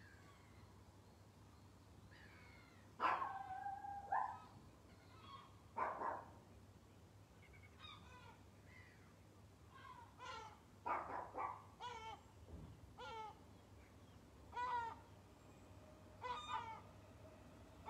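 A string of short, pitched animal calls in irregular bunches, beginning about three seconds in with a longer two-part call.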